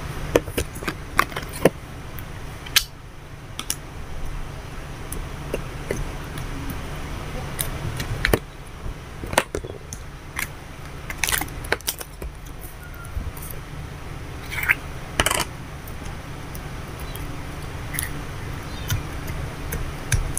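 Hands handling slime in small plastic cups and a clear plastic box: scattered sharp plastic clicks and taps, with a few longer rustling handling sounds about two-thirds of the way in, over a steady low hum.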